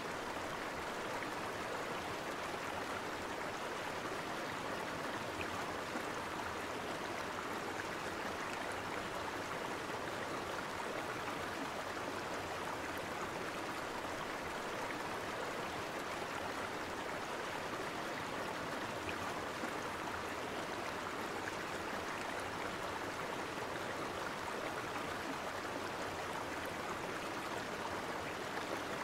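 River water flowing past, a steady, even rush of moving water.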